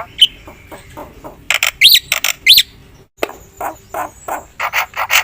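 Black-winged myna (jalak putih) singing: a run of short, harsh calls with two loud whistled notes, each rising and falling, about two seconds in, then faster chattering after a brief break.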